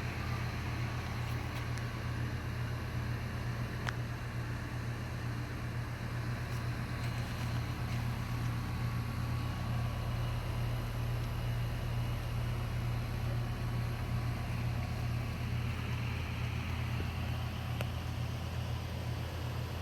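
Goodman air conditioner unit running steadily: an even low hum with a rushing of air from its fan.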